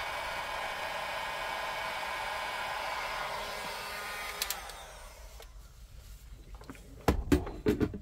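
Electric heat gun blowing on a low heat setting to shrink heat-shrink tubing over a soldered wire joint. About four and a half seconds in it clicks off and its fan winds down, and a few sharp knocks follow near the end.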